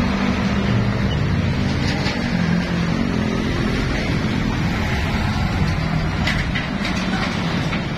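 Heavy diesel trucks passing close by in slow traffic: a steady low engine drone mixed with tyre and road noise, its pitch shifting as each truck goes past.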